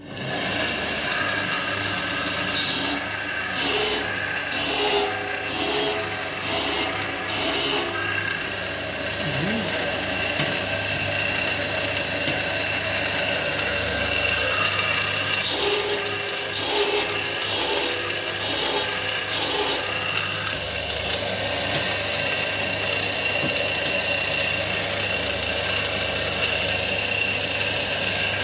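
Saw-blade sharpening machine starting up, its motor running steadily while the grinding wheel strokes against the teeth of a large circular saw blade. The strokes come about one a second, in two runs of five or six.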